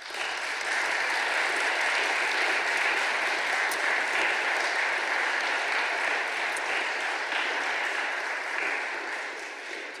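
Audience applauding steadily at the end of a lecture, the clapping tapering off in the last second or so.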